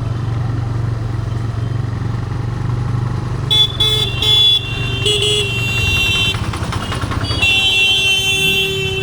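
TVS Raider 125's single-cylinder engine running steadily while riding, with a vehicle horn honking in short blasts about halfway through and a longer blast near the end.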